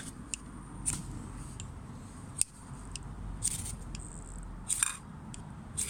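Ferro rod being struck to light a BCB Fire Dragon solid-fuel tablet: a series of short, sharp, high-pitched scrapes, with two longer strikes in the second half.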